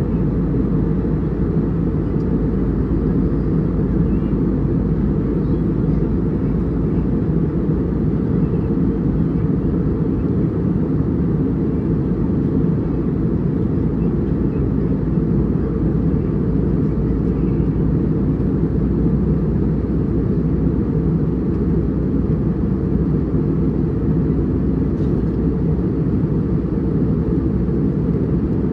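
Steady cabin drone of an airliner in flight: engine and airflow noise as a deep, even rumble that does not change.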